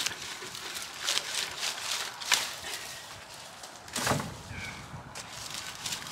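Rustling and snapping of Santolina shrub stems and foliage being pulled out by hand. About four seconds in comes a thump as the cuttings are dropped into a plastic wheelie bin.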